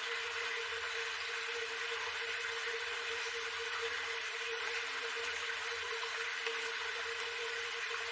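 Steady rushing noise of running water, unchanging throughout, with a faint steady hum underneath.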